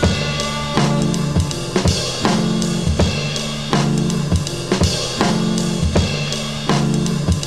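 Music: a steady drum-kit beat with bass drum, snare and cymbals over a bass line, a drum hit about every three-quarters of a second.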